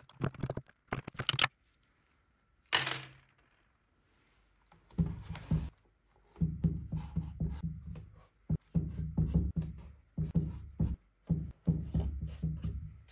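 Steel end-cutting pincers clicking sharply several times as they grip and pull old nails from a wooden board. After a pause comes a long run of stop-start tapping and rubbing as paper labels are pressed by hand onto the chest's wooden panels.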